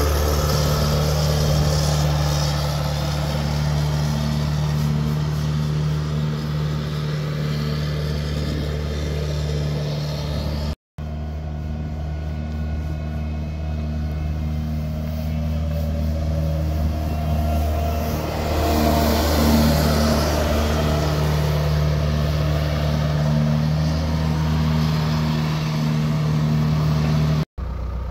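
Elgin Pelican street sweeper's John Deere 4039 four-cylinder diesel engine running steadily as the sweeper drives around, growing louder for a few seconds past the middle.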